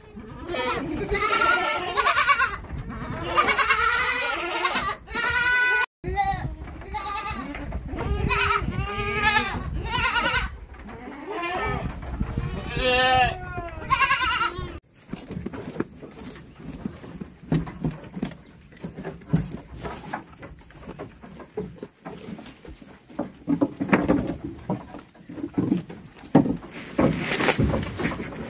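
Goats bleating repeatedly, a run of wavering, quavering calls through the first half, followed by quieter scattered clicks and knocks.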